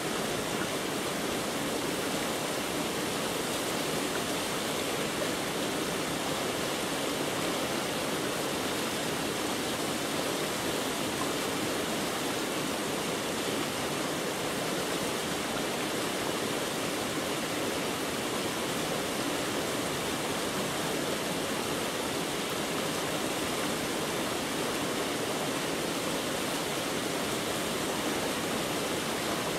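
Steady, unbroken rushing noise with no changes or separate events.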